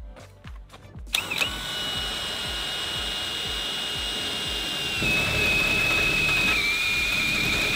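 DeWALT cordless drill with a step drill bit cutting into the steel of a shipping container door, oiled with cutting oil. It starts about a second in as a steady high whine, grows louder a few seconds later and dips slightly in pitch twice as the bit bites deeper.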